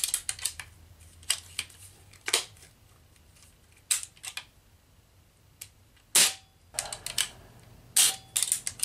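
Irregular sharp clicks and knocks as a Crosman 1377 air pistol is handled, its metal and plastic parts clacking together and against the workbench, with the loudest knock about six seconds in.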